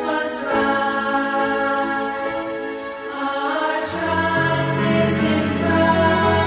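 Background music with long held notes, and a low bass part coming in about four seconds in.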